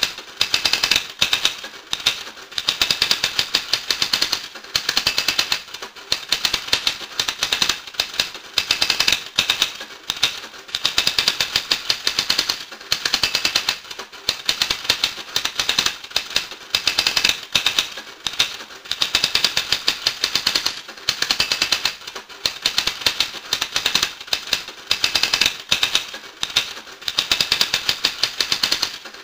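Rapid, dense clicking in runs of a second or two, broken by short pauses, repeating over and over.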